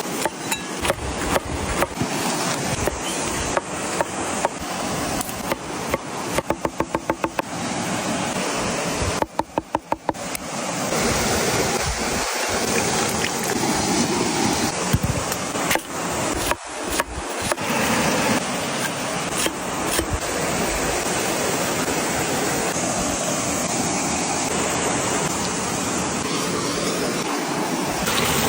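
A steady sizzling hiss with scattered crackles and pops, fitting Adana kebab meat grilling over an open fire. Twice, a little before the middle, comes a short run of fast, even tapping.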